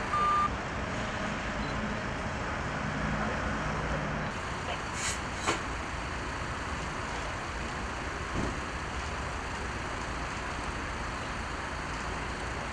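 Steady road traffic noise with a low engine hum in the first few seconds. A short high beep sounds at the very start, and two sharp clicks come about five seconds in.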